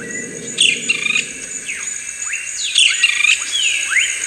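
Birds calling over a steady high insect drone: repeated short falling whistles and quick rising chirps, several a second at times.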